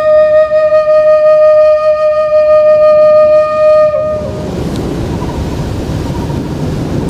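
A seruling, a Malay bamboo flute, holds one long steady note for about four seconds, then breaks off, leaving the wash of small waves on the shore.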